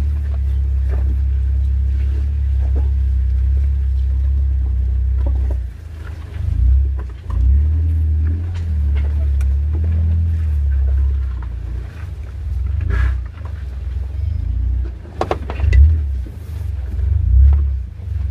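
Jeep Wrangler Rubicon's engine running at low revs while rock crawling, the throttle swelling and easing off as it climbs a rocky hill. Scattered knocks and thumps from the tyres and chassis on the rocks, the sharpest a little past the middle.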